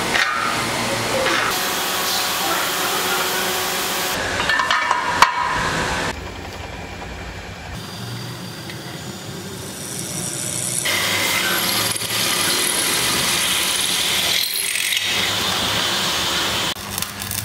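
Workshop machinery: a hydraulic tube-bending machine runs as it bends a steel section, with one sharp clack about five seconds in. After that a pillar drill runs and bores through a rectangular steel tube, its cutting noise growing louder about eleven seconds in.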